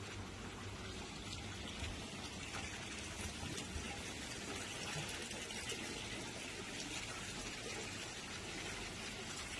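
Steady rain falling, an even hiss with no distinct drops or breaks.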